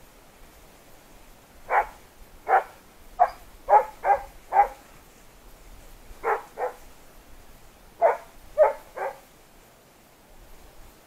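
Hunting dog barking: about eleven short barks in three bouts, six in quick succession, then two, then three.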